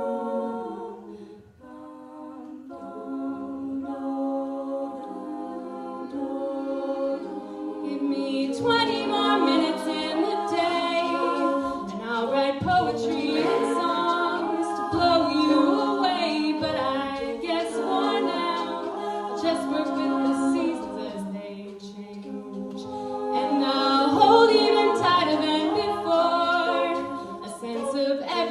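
A cappella vocal group singing a layered choral arrangement. It starts soft and sparse, swells into fuller singing about eight seconds in, eases briefly, then grows loud again near the end.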